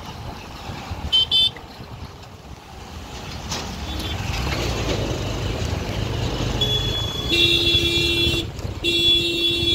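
Vehicle horns in road traffic: two quick high beeps about a second in, then two long horn blasts near the end, over the low rumble of engines and wind while riding a two-wheeler through traffic.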